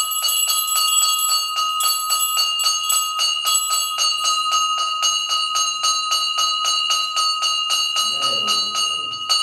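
A temple bell struck rapidly and evenly, about five or six strokes a second. Its clear ringing tone carries on unbroken between strokes.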